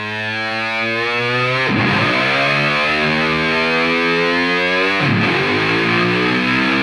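Background music: distorted electric guitar with held, ringing chords, fading in at the start and changing chord twice.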